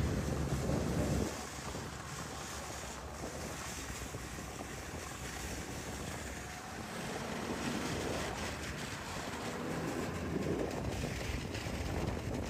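Wind blowing across the microphone. A heavy low buffeting in the first second or so eases to a steadier rushing noise.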